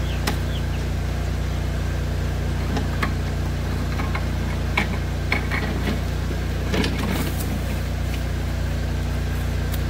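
Pressure washer's engine running steadily at a constant pitch, with a few short clicks and knocks in the middle as the hose is unhooked from the surface cleaner.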